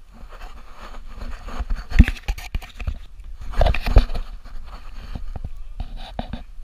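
Scraping and rustling against tree bark as someone clambers barefoot along a fallen tree trunk with the camera on them, with loud knocks about two seconds in and again around four seconds in as the camera is jostled.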